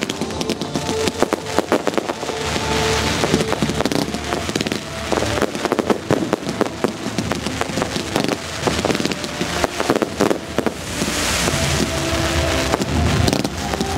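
Aerial fireworks display: a dense, continuous barrage of bangs and pops from shells and comets bursting, with a hissing crackle swelling about eleven seconds in.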